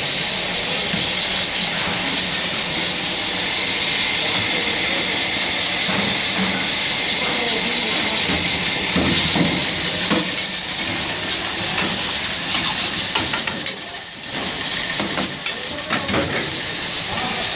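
Steady hiss of chicken karahi boiling hard in steel karahi pans over high gas flames. A few knocks and clinks of the cook's ladle against the pans come in the second half.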